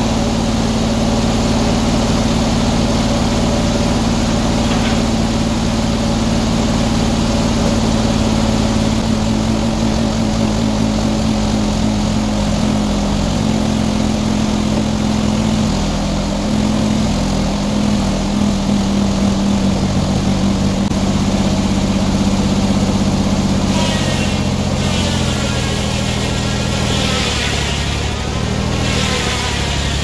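Circular sawmill running: the engine that drives the large circular blade runs steadily, its pitch dropping and then shifting again as the carriage is worked. A wavering higher whine joins in over the last few seconds.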